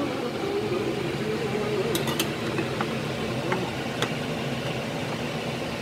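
Steady hum of a kitchen fan, with a few light clinks of a ceramic plate and utensils about two to four seconds in.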